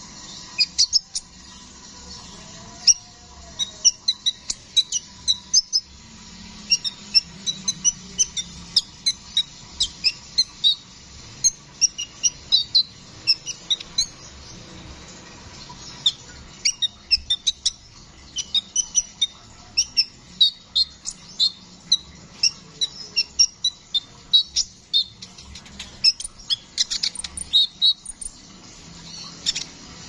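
Male Van Hasselt's sunbird ('kolibri ninja') singing: quick runs of short, sharp, high chirps and twitters, with a brief pause about halfway through.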